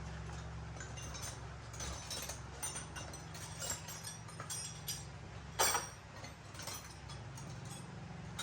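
Scattered small metallic clinks and taps of hand tools and parts being handled during motorbike repair, with one louder knock about five and a half seconds in, over a steady low hum.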